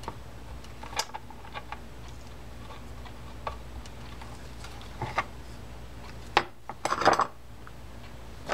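Small metal parts of a Garcia Mitchell 600-series saltwater reel clicking and clinking as they are fitted and seated by hand on the drag side during reassembly. Scattered light clicks, with a quick run of louder ones about seven seconds in.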